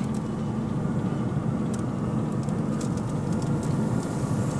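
Steady mechanical hum of a Broil King Regal 500 pellet smoker running with its rotisserie spit turning, with a few faint light ticks.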